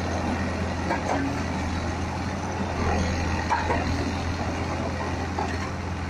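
Concrete mixer pump running steadily while it pumps concrete: a constant low hum with even machine noise over it.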